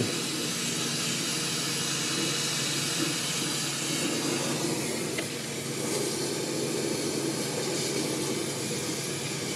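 Brazing torch flame burning with a steady hissing rush while a copper refrigeration line joint is heated and brazed.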